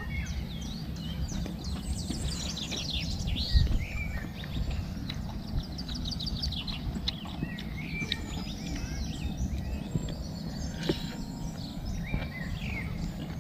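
Many small birds chirping and calling in quick runs of high notes, over a steady low rumble. A single low knock about three and a half seconds in.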